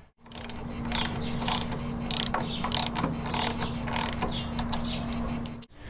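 Ratcheting socket wrench clicking in repeated strokes, about two a second, as the fuel tank's mounting bolts are tightened. A steady low hum runs underneath.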